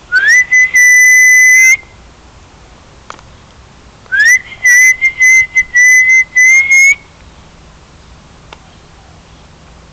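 Dog whining in two long, high-pitched cries, each sliding up at the start and then holding a steady pitch: the first lasts about a second and a half, the second, near the middle, is longer and broken into several pieces. The dog is crying for a companion dog that has run off.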